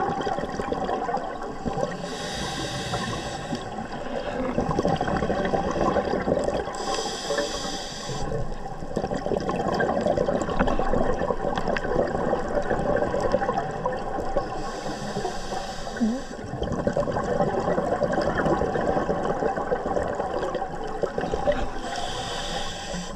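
Underwater scuba audio: a steady rushing wash of water noise, with four bursts of a diver's exhaled regulator bubbles, each lasting a second or two and several seconds apart.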